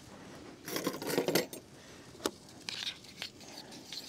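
Dishes and a utensil being handled: a rattling clatter about a second in and a sharp click a little after two seconds. Near the end, a spoon starts scraping around a plastic bowl of pancake batter.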